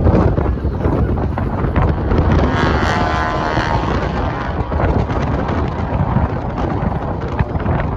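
Wind buffeting the microphone, with the drone of an aircraft's engine swelling up briefly about halfway through.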